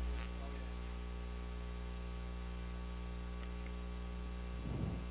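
Steady electrical mains hum with a buzzy edge over faint hiss on the broadcast audio. A brief faint rustle comes near the end.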